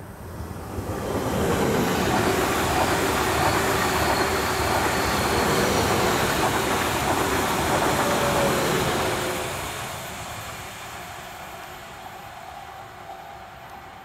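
Two coupled Stadler Flirt electric multiple units passing at speed on the near track. The rumble of wheels on rail swells about a second in, holds loud for several seconds, then fades away as the train recedes.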